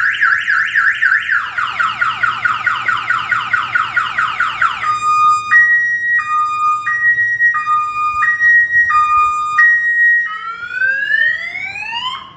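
Aftermarket car alarm siren on a Polaris Slingshot, set off by its interior sensor when the cockpit is disturbed. It cycles through its tones: a fast rising warble, then rapid falling sweeps, then a two-tone high-low alternation, then slow rising whoops near the end.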